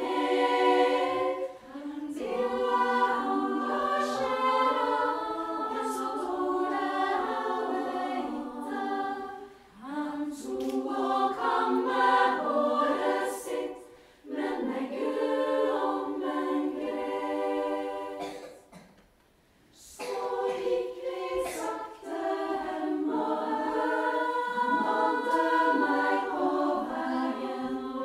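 Women's choir singing a Norwegian song in phrases, with brief breaks between them and one longer near-silent pause about two-thirds of the way through.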